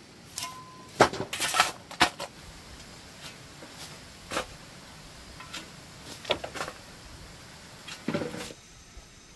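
Irregular knocks and scrapes of rocks and dry soil being shifted. A cluster of clatters comes in the first two seconds, a few single knocks follow, and another clatter comes near the end.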